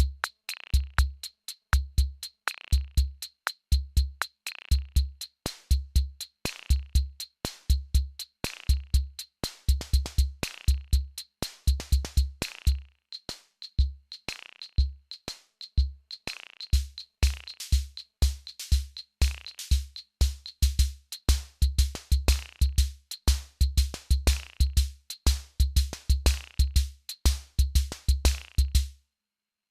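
Electronic drum machine beat of deep kick drums with quick clicky hi-hats and occasional snare hits. The pattern thins out for a few seconds partway through, then picks back up. It stops abruptly near the end.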